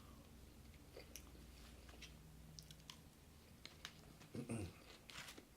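A person chewing food with soft, scattered mouth clicks and smacks, very quiet. A brief low sound comes about four and a half seconds in.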